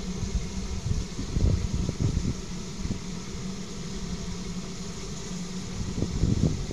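Locomotive standing and running with a steady low hum, while gusts of wind buffet the microphone now and then.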